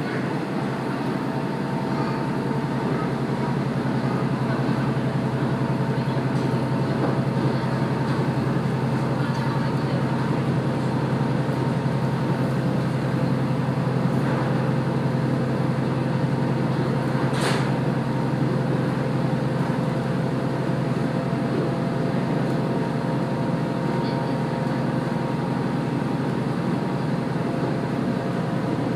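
Heard from aboard a KiHa 48 diesel railcar running along the line, a steady drone of engine and wheels on rail, with a single sharp click a little past the middle.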